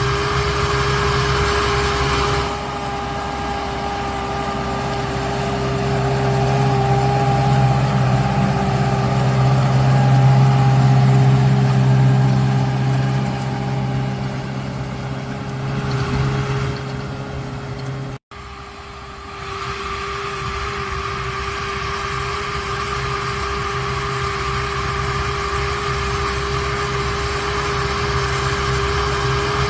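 Large diesel farm machine's engine running steadily under load. About eighteen seconds in, the sound cuts out for a split second and then resumes.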